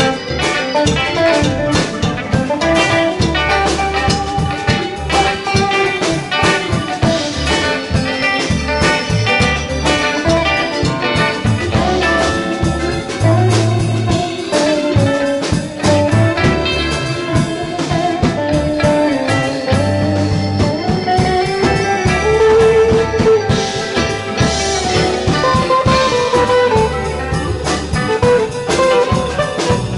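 Live rock band playing an instrumental passage with no vocals: drum kit and bass guitar keeping a steady groove, electric guitars and a keyboard, with a melodic lead line wandering over the top.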